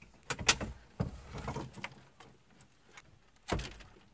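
Scattered clicks and knocks of hand tools and plastic dash trim being handled, with a louder knock about three and a half seconds in.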